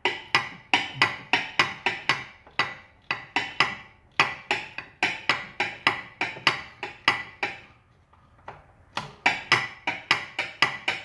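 A ratchet wrench clicking in a long run of sharp, lightly ringing clicks, about four a second, with two short pauses, as bolts in the rear suspension are loosened off.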